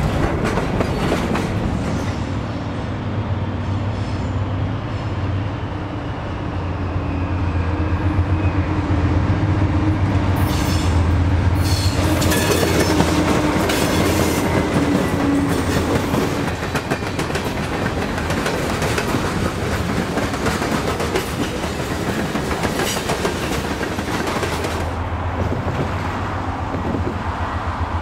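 Pan Am Railways freight train rolling by, its wheels clattering steadily over the rail joints beneath a low diesel rumble.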